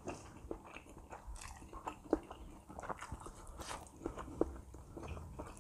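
Quiet close-up chewing of a mouthful of shrimp-and-chicken siomay, picked up by a lapel microphone, with a few light clicks of a knife and fork against the plate.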